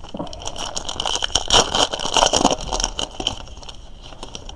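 Trading card pack wrapper being torn open and crinkled, with a busy run of crackling and small clicks that is loudest in the middle.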